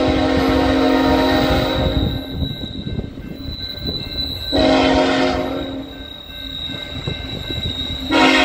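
Diesel locomotive's multi-chime air horn: a long blast that stops about two seconds in, a short blast around the middle, and another blast starting near the end. A steady low rumble of the passing train runs underneath.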